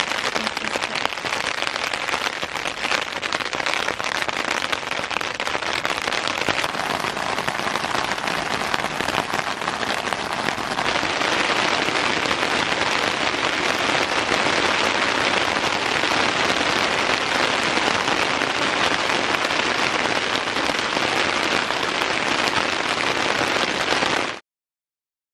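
Rain falling hard on a tent, heard from inside the tent. It gets louder about eleven seconds in and cuts off suddenly near the end.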